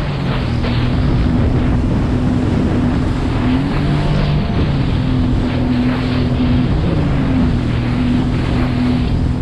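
Sea-Doo GTI 130 jet ski's four-stroke Rotax engine running steadily at speed across open water, its note shifting in pitch a couple of times as the throttle changes, with wind on the microphone and water spray along the hull.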